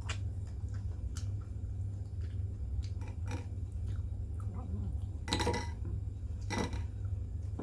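Chewing and eating sounds with scattered small clicks, and two louder short noises about five and a half and six and a half seconds in, over a steady low hum.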